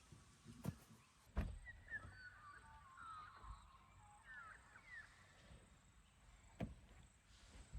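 Faint animal calls, a run of short chirps gliding up and down in pitch, with a few sharp knocks about a second in and near the end.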